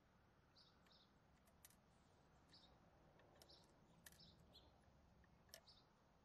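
Near silence: faint outdoor background hiss with scattered short bird chirps and a few faint clicks.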